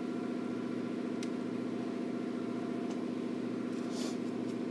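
A steady mechanical hum, with a couple of faint clicks and a brief scratchy sound about four seconds in.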